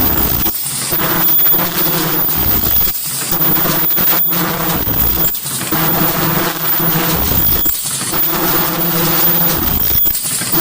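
Automatic N95 mask-making machine running, a steady buzzing hum that drops out briefly about every two and a half seconds as each production cycle repeats, with short high hisses at a similar spacing.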